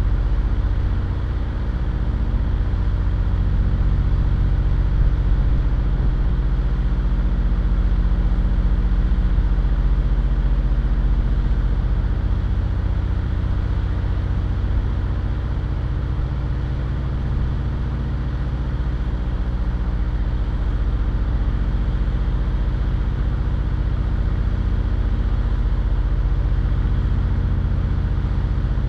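Car engine idling steadily, a low even hum with an airy hiss above it and no changes in pitch or revs.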